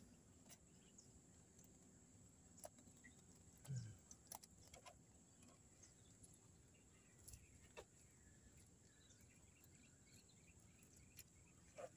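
Near silence: faint outdoor ambience with a steady high insect drone, scattered small clicks and one low thump about four seconds in.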